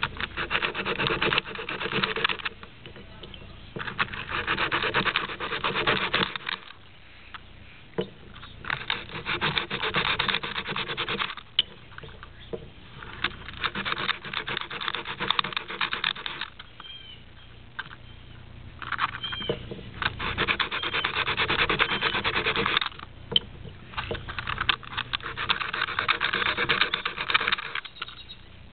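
A plastic Rubik's cube corner piece rubbed back and forth on sandpaper to smooth its sides, in about six stretches of a few seconds each with short pauses between.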